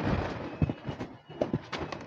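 Dry cat kibble poured out of its bag onto a plastic sheet: a rattling pour over the first half second, followed by a few scattered sharp clicks.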